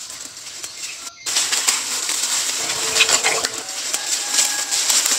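Birds calling, with a dove's low coo, over a steady high hiss. About a second in, the sound changes abruptly to closer splashing and rustling of hands and plants in shallow muddy water.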